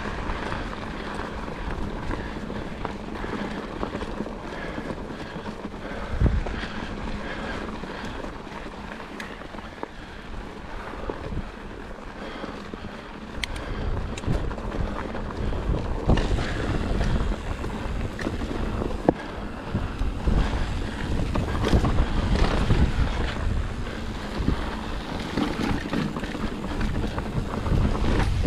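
Mountain bike riding a dry dirt singletrack: steady tyre noise on the dirt with scattered knocks and rattles from the bike, and wind buffeting the microphone. It gets louder and rougher about halfway through.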